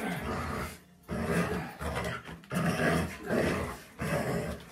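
Golden retriever growling in about four bursts of a second or so while tugging hard on a rope toy: play growls in a tug-of-war game.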